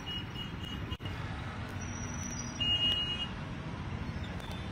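City road traffic: vehicle engines running in a steady low rumble, with a row of short high beeps in the first second and a brief high-pitched horn toot a little past the middle, the loudest sound.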